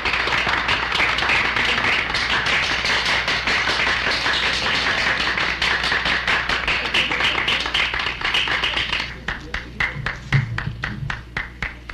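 Audience applauding: dense clapping that thins to scattered claps about nine seconds in and dies away near the end.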